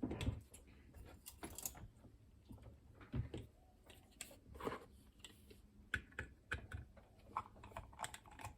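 Irregular small metallic clicks and taps from handling the Chubb Detector lever lock and the tools being used on it.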